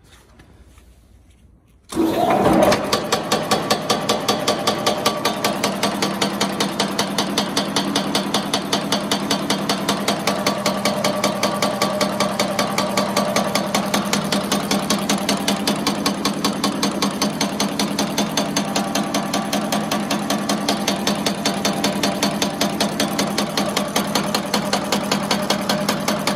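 Wafios S 110/2 machine starting up about two seconds in, then running at a fast, steady, rhythmic metallic clatter of several strokes a second over a steady hum.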